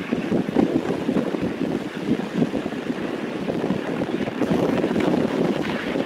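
Wind buffeting the microphone in a rough, fluttering rumble, with the noise of a moving car under it.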